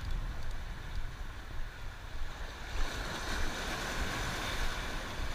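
Ocean waves surging and washing over shoreline rocks, with a swell of surf building about three seconds in. Wind rumbles on the microphone underneath.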